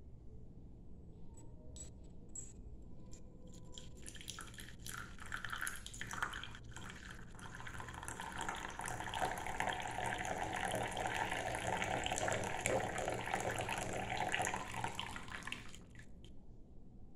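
Tea poured from a glass teapot into a ceramic teacup: a steady splashing stream that runs for about twelve seconds, grows louder midway and stops shortly before the end, after a few light clicks at the start.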